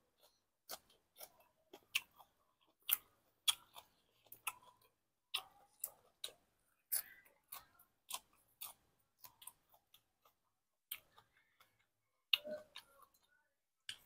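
A person chewing a mouthful of food wrapped in fresh leafy greens, with irregular wet smacks and crunchy clicks about two a second and a short pause near the end.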